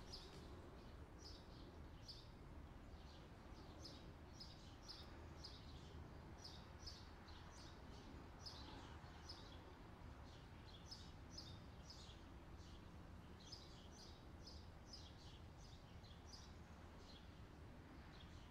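Faint chirping of small birds: short high chirps, several a second in loose runs, over a low background hiss.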